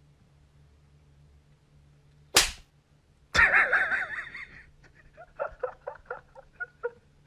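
A single sharp slap sound a little over two seconds in, then about a second later a burst of laughter that breaks into short choppy bursts and trails off near the end.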